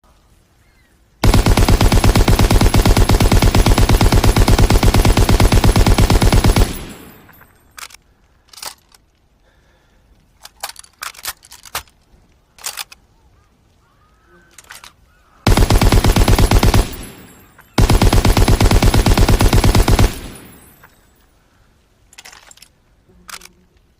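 Lewis light machine gun firing in three bursts of rapid shots: a long burst of about five seconds, then, after a pause of scattered metallic clicks and clacks, two shorter bursts close together.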